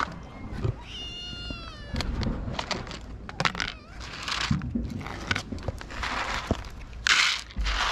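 A cat meows once about a second in. Scattered clicks and short bursts of rattling rustle follow as dry cat food is put out in plastic trays for the crowding cats.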